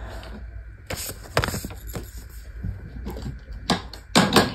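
Handling noise close to the microphone: a few sharp knocks and short clatters as small objects and a card are picked up and set down, with a low steady hum beneath.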